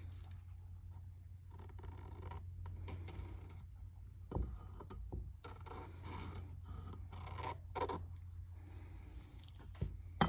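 Small hand-work sounds: irregular light scrapes and rustles with a couple of sharp knocks, over a steady low hum.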